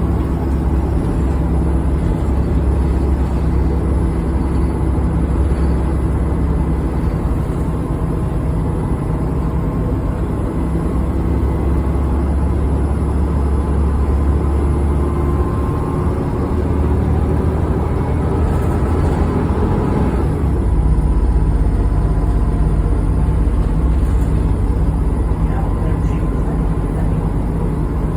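Bus engine running steadily under load while climbing a hill, a low drone with a faint whine above it; the engine note changes about twenty seconds in.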